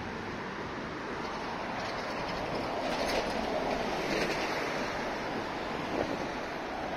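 City street traffic: a steady rush of tyres and engines from cars driving past on the road, swelling as vehicles go by between about three and four seconds in.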